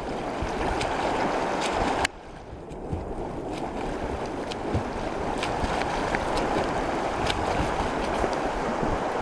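Steady rush of river water, with the splashing of a swimmer doing front crawl. The noise drops abruptly about two seconds in, then builds again.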